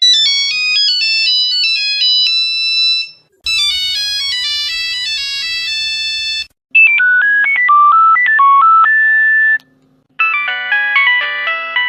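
Four short Nokia mobile-phone ringtone melodies played one after another, each about three seconds long with a brief silence between them. They are electronic tunes of clean beeping notes; the third is a plain one-note-at-a-time melody.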